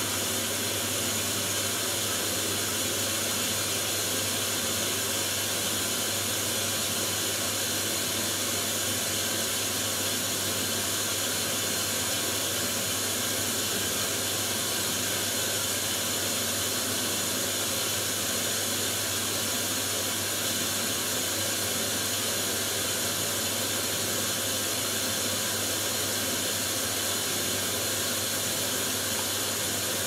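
Hoover Dynamic Next DXA610IW3 washing machine taking in water for the last rinse of its Wool & Silk cycle: a steady hiss of incoming water with a low steady hum.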